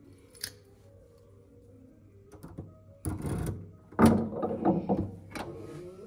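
A key is pushed into a door's deadbolt lock and turned. A light click comes first, then a rattle, and about four seconds in a quick run of loud metallic clicks and clunks from the lock and handle as the door is unlocked.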